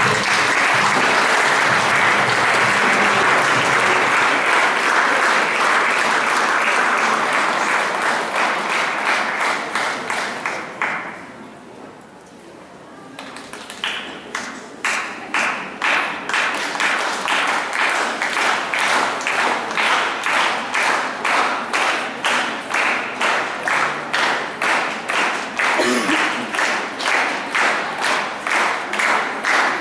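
Audience applause that dies away after about ten seconds. The crowd then takes up steady rhythmic clapping in unison, nearly two claps a second.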